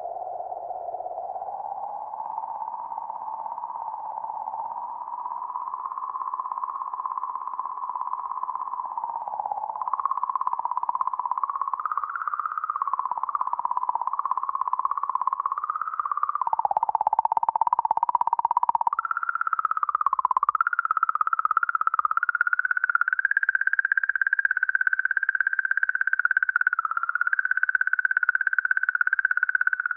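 Sonified magnetic-field oscillations recorded around comet 67P/Churyumov–Gerasimenko, sped up into a warbling electronic tone. The tone wavers up and down, climbs slowly in pitch, dips twice past the middle, then holds higher and louder near the end.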